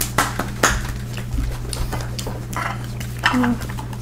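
A run of light, irregular clicks and knocks: plastic peep containers handled and set down on a wooden table.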